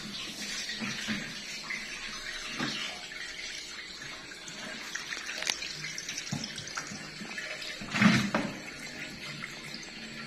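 Water running from a tap into and over a plastic container held at a sink, with a sharp knock about eight seconds in.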